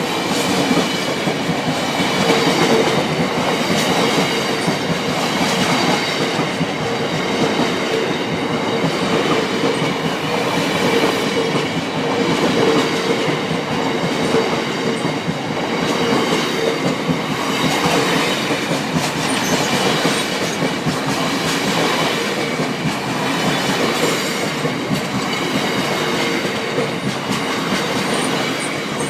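Freight train wagons rolling past over the level crossing: a steady rumble and clickety-clack of wheels over rail joints, with a steady tone running through it.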